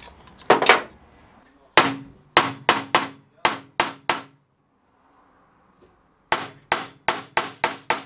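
An engine's oil pickup rapped repeatedly against a workbench to shake out the silicone sealant and bearing debris clogging it: two runs of sharp knocks, a pause of about two seconds between them.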